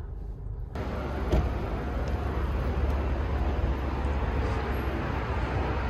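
Steady low rumble and noise of a moving vehicle, starting about a second in, with a single short knock just after.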